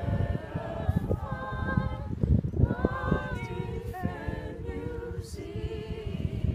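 A mixed group of young voices singing together unaccompanied, a choir of students holding notes and moving slowly from one to the next.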